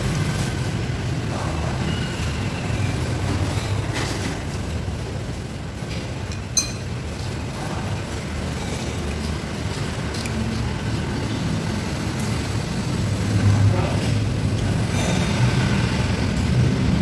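Steady low background rumble with a few sharp clinks of cutlery against dishes, the sharpest about six and a half seconds in.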